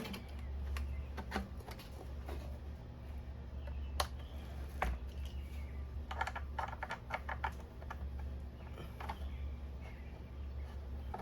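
Light clicks and taps of small hand tools and metal parts as the carburetor bolts of a Stihl FS36 string trimmer are refitted, with a quick run of ticks a little past the middle, over a low steady hum.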